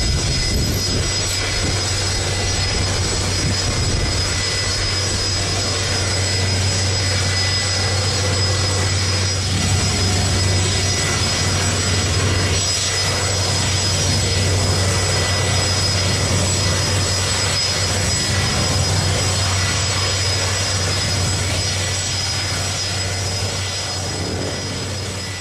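Jet airliner engines running at takeoff thrust, a steady loud roar with thin high whining tones over it, starting to fade near the end.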